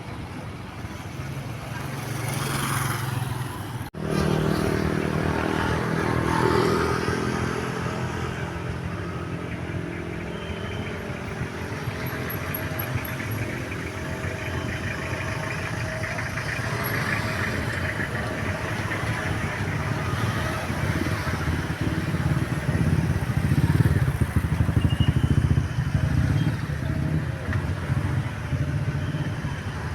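Road traffic passing: vehicle engines running by, with one starting up loudly about four seconds in and the traffic swelling louder again later.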